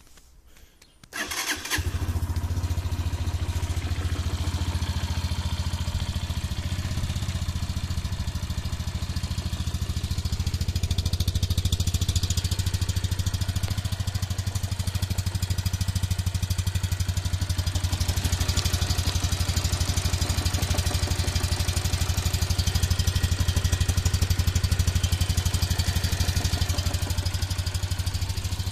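Benyco BR125's 156FMI single-cylinder 125 cc four-stroke engine starting about a second in, catching at once, then idling steadily with an even, rapid pulse.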